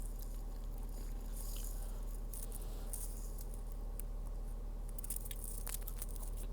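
Close-up chewing of fried basil popcorn chicken: scattered soft crunches and wet clicks over a steady low hum.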